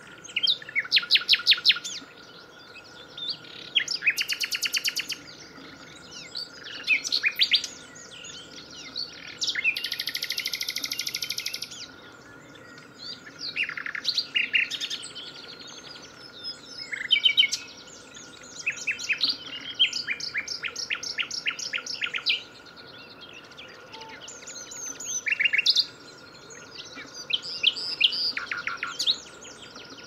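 Common nightingale singing: a string of varied phrases, each a quick run of repeated notes, broken by short pauses, with one dense buzzy trill about a third of the way in. A faint steady tone runs underneath.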